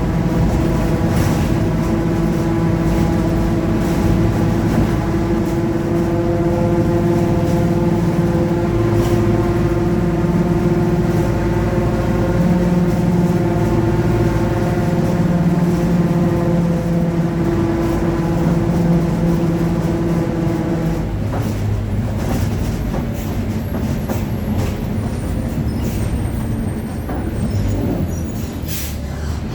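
Mercedes-Benz OF-1721 city bus on the move, its rear differential giving a steady growling whine over the running noise, the sign of a worn differential. The whine stops about 21 seconds in, leaving a lower rumble.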